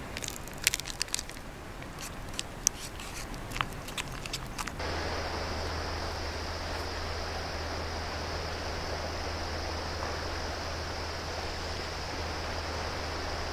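A spoon clinking and scraping against a metal camping pot while coffee is stirred: a dozen or so light, uneven clicks. About five seconds in this gives way to a steady outdoor hiss with a low hum underneath.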